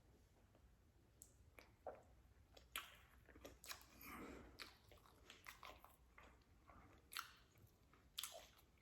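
A person chewing a mouthful of burger: faint, scattered wet clicks and soft crunches of the bite being worked.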